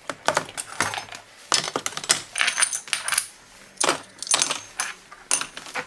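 Metal snare drum hardware, the hoops and lugs, clinking against each other and the tub as they are set into a bath of cola. It is an irregular string of sharp metallic clicks and clinks, some with a brief ring.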